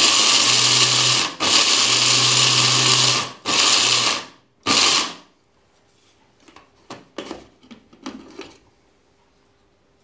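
Small electric grinder running in pulses while grinding dried chickpeas finer: a run that stops about a second and a half in, a second run of about two seconds, then two short bursts, stopping about five seconds in. After that, a few light clicks and knocks.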